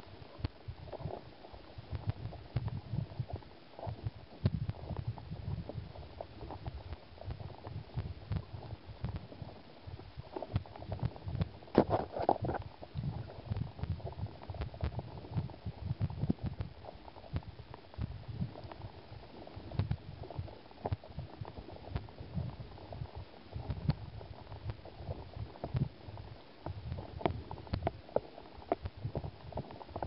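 Fast riffle current heard from underwater: an irregular low rumble with knocking and scattered sharp clicks, and one louder knock about twelve seconds in.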